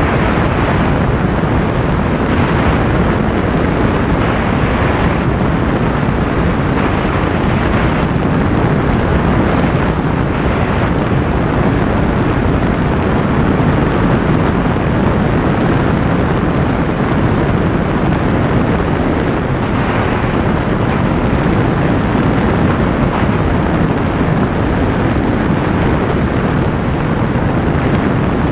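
Steady, loud rush of wind over a camera mounted on the wingtip of a light plane in flight, with the plane's engine running underneath.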